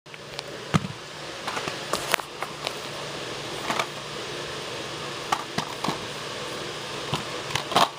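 Handling noise of a plastic DVD case being held and turned over: scattered clicks and knocks, the loudest about a second in and just before the end, over a steady hiss.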